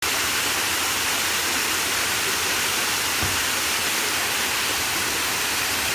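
Waterfall: water crashing down in a steady, unbroken rush.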